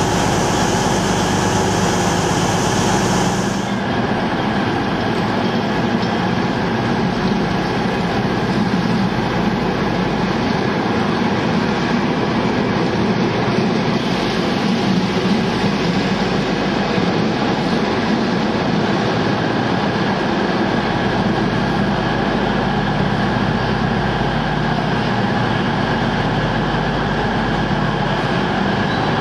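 Hanson aggregate hopper wagons of a freight train rolling past on the through line: a steady, loud rumble of steel wheels on the rails. A higher hiss drops away a few seconds in.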